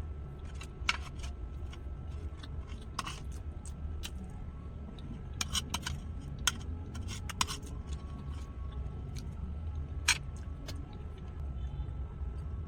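Scattered light clicks and clinks of eating utensils against a plate or bowl, about half a dozen sharper ones spread out, over a steady low hum.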